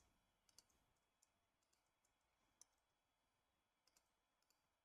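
Near silence broken by scattered faint clicks from a computer's mouse and keyboard, about half a dozen over the few seconds.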